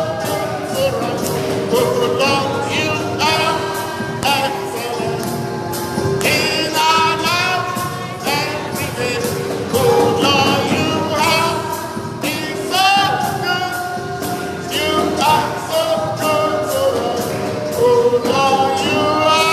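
Gospel worship music: singing with vibrato over instrumental accompaniment, with a steady low note held underneath.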